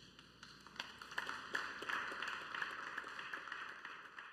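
Applause: many hands clapping, swelling about a second in and fading away near the end.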